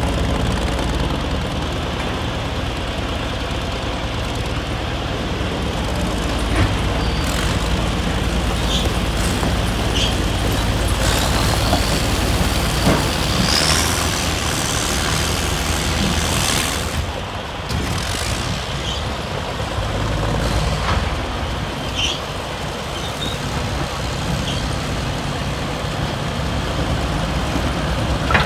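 Heavy old diesel construction machine running steadily, with a few short knocks and a brief rising whine about halfway through.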